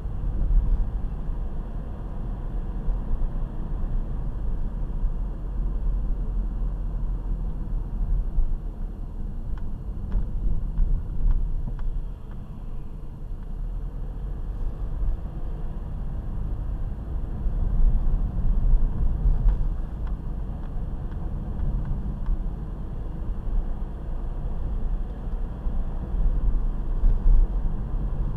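Car being driven: a steady low road-and-drivetrain rumble, with a few faint knocks now and then, the clunking noise the car makes while driving.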